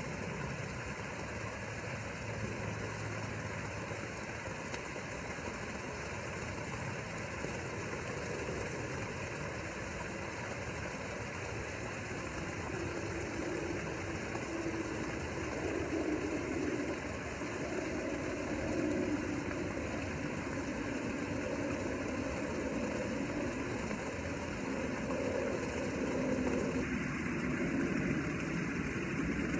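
Steady background noise with a low running hum, a little louder in the second half.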